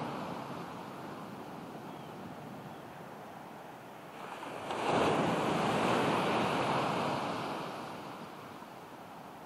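Ocean surf breaking on the beach: a steady wash, with one wave swelling to a crash about halfway through and then washing out and fading.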